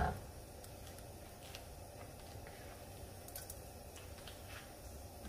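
Faint, steady background with a few scattered faint ticks from long-grain rice sitting in a hot stainless steel frying pan before it is stirred.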